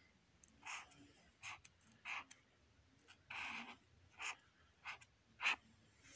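Black marker pen drawing lines on squared paper: about seven short strokes, one a little longer just past the middle, and the last the loudest.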